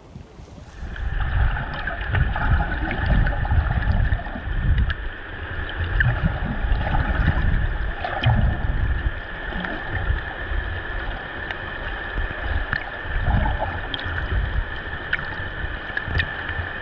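Muffled underwater sound through a submerged camera: water rushing and sloshing in uneven low surges, with a faint steady whine and light clicks over it. It gets louder and duller about a second in.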